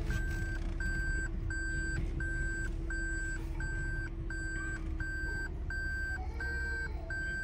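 Steady electronic warning beeps, about three every two seconds, each a short held tone, over the low rumble of a car moving slowly.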